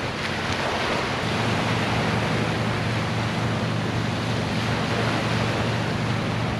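Small waves washing and lapping onto a sandy shoreline, a steady rushing wash, with a low steady hum underneath.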